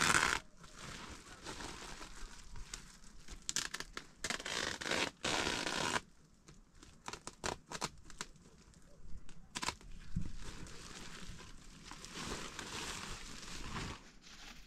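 Irregular rustling and crinkling noises with scattered sharp clicks, busier and louder in the first half, then sparser and quieter.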